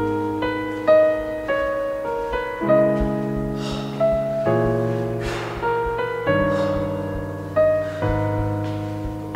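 Slow piano music: sustained low chords changing about every two seconds, with single higher notes picked out above them.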